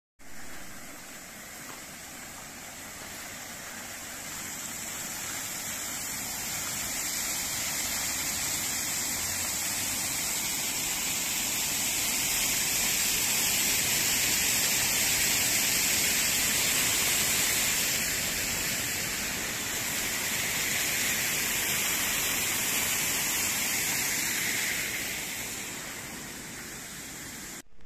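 Arching fountain jets splashing down onto wet paving: a steady splashing hiss that swells about four seconds in, is loudest midway, with the listener beneath the arch of jets, and fades over the last few seconds.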